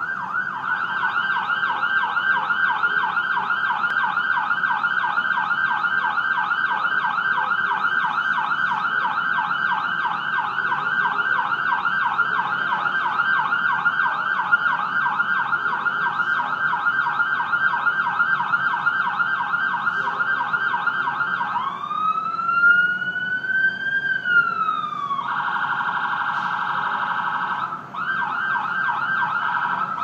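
Ambulance siren sounding a rapid yelp. About two-thirds of the way in it switches to one slow rising and falling wail, then to a fast warble, and the yelp returns near the end after a brief break.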